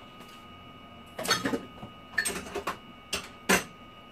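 Kitchen clatter of a bowl and utensils being handled: a run of short knocks and rattles starting about a second in, ending with two sharp knocks.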